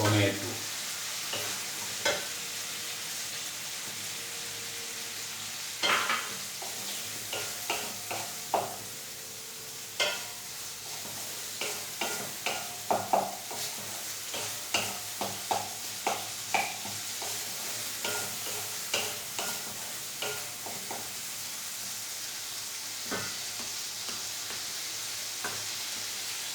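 Spice masala with freshly added tomato frying in oil in a pan, with a steady sizzle. A spatula stirs it, tapping and scraping against the pan in a run of short knocks, most of them between about six and twenty-one seconds in.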